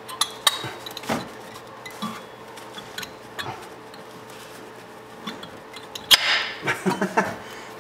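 Metal clicks and rattling as a brake pad is worked into a disc-brake caliper: scattered sharp taps, then a loud burst of clatter about six seconds in as the pad goes in. A faint steady hum sits underneath.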